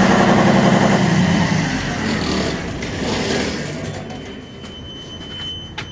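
John Deere 6068 six-cylinder diesel running unloaded at idle, freshly primed after an injector pump replacement. Its sound fades away over the middle of the clip. A steady high-pitched electronic tone comes in about two-thirds of the way through.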